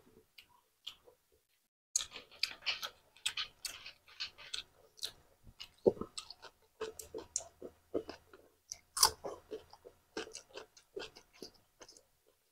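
Close-miked chewing of a mouthful of food: many small, irregular smacks and clicks. It starts about two seconds in, after a nearly quiet start.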